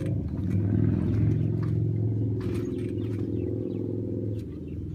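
An engine running steadily with a low drone, with a few light knocks over it.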